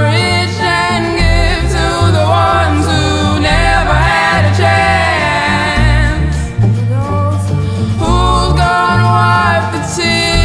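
Background music: a song with a sung lead vocal over a pulsing bass line.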